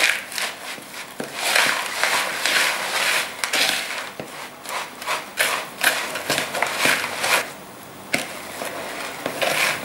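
Metal spoon stirring crumbly Oreo cookie crumbs into sticky marshmallow creme in a plastic mixing bowl: repeated irregular scraping and knocking strokes against the bowl, about two a second, with a short lull near the end.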